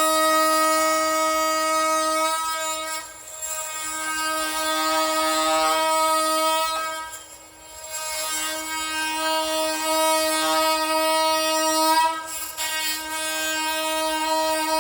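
Makita XMT04ZB oscillating multi-tool running under cut with a steady high whine, trimming the excess edge off a corner. It eases off briefly three times, about 3, 7½ and 12½ seconds in.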